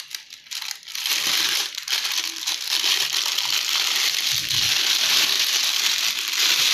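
Plastic wrapping crinkling and rustling steadily as it is handled and pulled off wrapped shelf boards, with a short low thump about four and a half seconds in.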